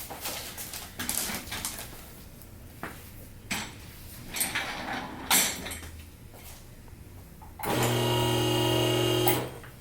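Rustling and handling noise with a few sharp clicks, then a small electric motor runs with a steady hum for about a second and a half near the end and stops abruptly.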